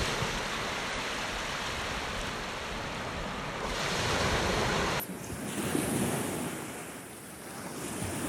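Sea waves washing on the shore, mixed with wind on the microphone. The noise swells about four seconds in, then changes abruptly at about five seconds into a duller, rising and falling wash.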